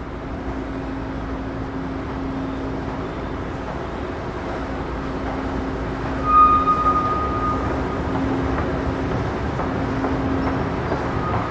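Escalator machinery running with a steady hum and rumble, slowly growing louder. About six seconds in, a short high squeal or beep sounds for a second or so.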